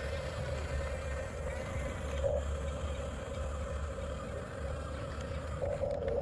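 Electric drive motors and gearboxes of a 1/14 scale Huina RC bulldozer whining steadily, swelling briefly about two seconds in and again near the end.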